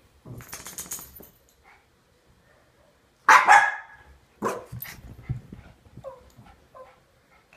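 Puppies barking as they play-fight: one sharp, loud bark about three seconds in, another a second later, and a few short high yips near the end. A noisy rustle comes shortly before the barks.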